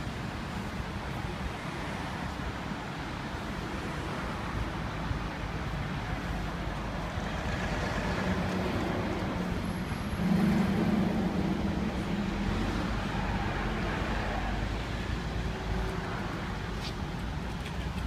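Steady road traffic going by. A louder vehicle passes about halfway through, its low engine hum swelling and then fading.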